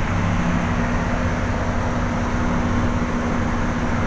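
Vehicle engine running steadily with a constant hiss of tyres and rain, driving through heavy rain.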